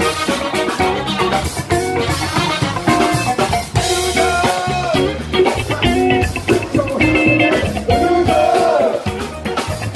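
Live band playing a groove, with electric guitar over drum kit. Near the end one held note wavers up and down in pitch.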